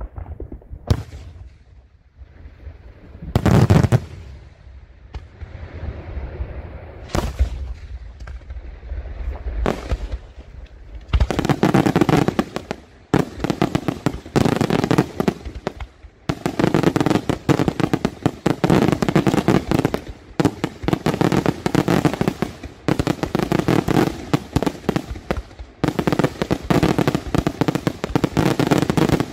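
Daytime aerial fireworks: a few separate shell bursts, then, about eleven seconds in, a dense, continuous barrage of rapid bangs and crackling reports.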